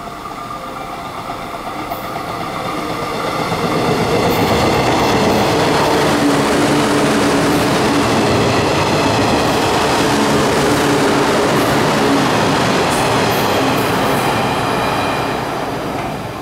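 JR 113 series electric multiple unit, two coupled sets, passing through a station at speed without stopping: the rumble of wheels on rail grows over the first few seconds, stays loud for about ten seconds as the cars go by, and fades near the end as the train draws away.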